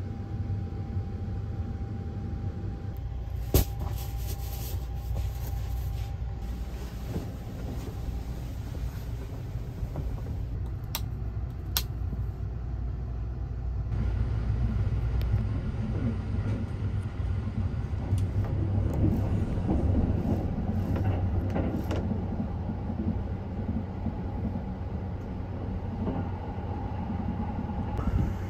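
Sunrise Seto sleeper train running, heard from inside a compartment as a steady low rumble, with a few sharp clicks. The running noise gets louder about halfway through.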